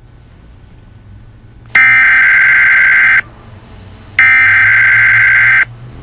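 Emergency Alert System SAME header: two harsh digital data bursts of about a second and a half each, separated by a short gap, over a low steady hum.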